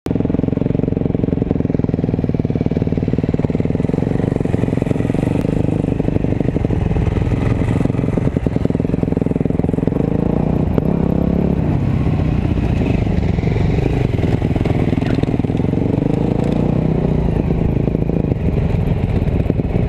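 Dirt bike engines running at low speed on a ride, the nearest being the camera-carrying bike. A four-stroke single-cylinder Husqvarna FC350 runs just ahead. Engine speed rises and falls somewhat around the middle.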